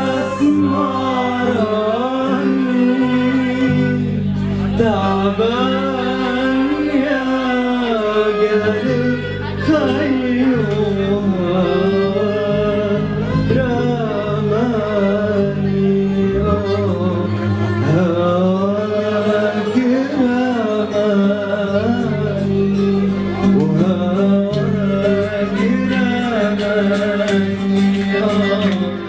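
A man singing live into a microphone in long phrases whose pitch winds up and down in ornaments, over an instrumental backing that holds steady sustained notes and a low bass line.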